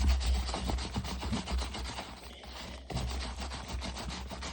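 Brush scrubbing conditioner into the fingers of a leather baseball glove: quick, rapid rasping strokes on the leather, easing off about two seconds in and picking up again near three.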